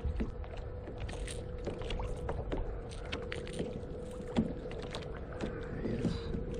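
Motorized kayak's trolling motor running with a steady hum. Scattered small clicks and splashes of choppy water play over a low wind rumble on the microphone.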